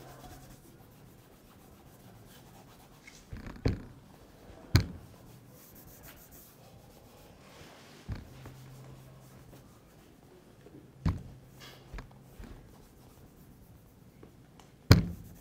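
Soft rubbing of a cotton cloth on a leather boot, broken by about six sharp taps and knocks, the loudest near the end.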